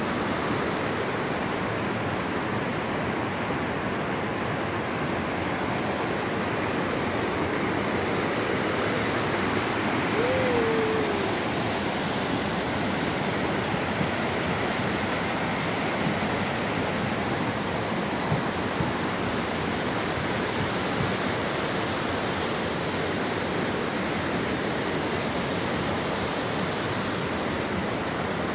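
Steady rush of a mountain river running over rocks. A single short falling squeak comes about ten seconds in.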